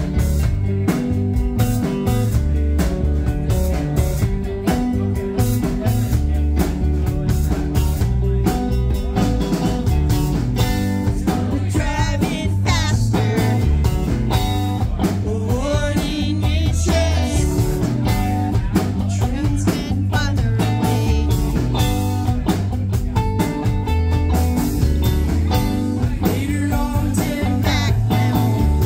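Live rock band playing: electric guitars and bass guitar over a drum kit, loud and steady, with drum hits throughout. Around the middle, a run of wavering, bending high notes stands out.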